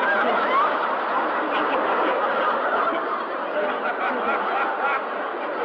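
Many people laughing and chuckling together without a break, a laugh track.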